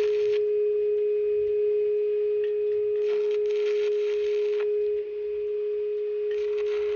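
Stick-welding arc crackling in short bursts of about a second and a half, as on tack welds on thin steel. A steady single tone runs under it and is the loudest sound throughout.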